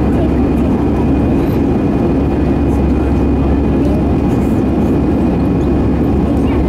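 Airbus A320-200 cabin noise heard from a window seat: a steady, loud drone of the jet engines and airflow, with faint steady tones above it.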